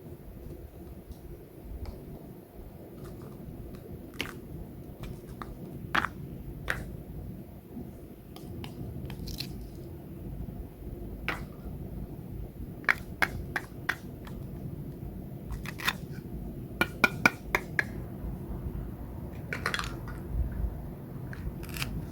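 Scattered light clicks and taps of small objects being handled, with a quick run of sharper clicks about halfway through and another a few seconds later, over a steady low rumble.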